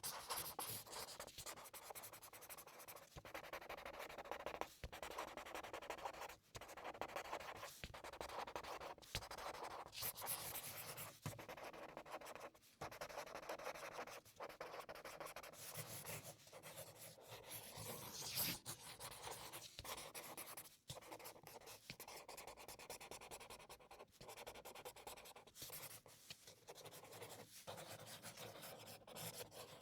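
Felt-tip marker drawing on paper: strokes of the tip squeaking and scratching across the sheet, with short pauses every second or two between strokes.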